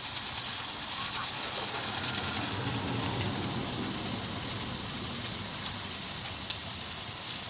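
Ground chilli and spice paste frying in hot oil in a pan, a steady sizzling hiss.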